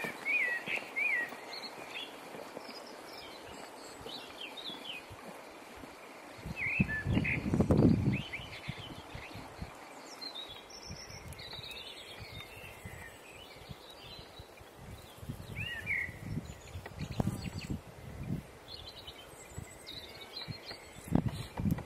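Small birds chirping in short repeated calls over outdoor ambience, with hikers' footsteps on a dirt trail and a loud, low muffled rumble about eight seconds in.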